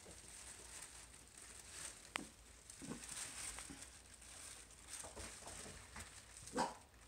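Havanese puppies moving about on the floor, with one inside a fabric play tunnel: faint scattered rustling and light patter. A sharp click comes about two seconds in and a louder brief sound near the end.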